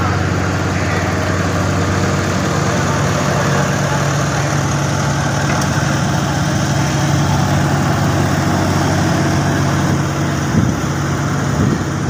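Engine of a steel-drum road roller running steadily with a low, even hum.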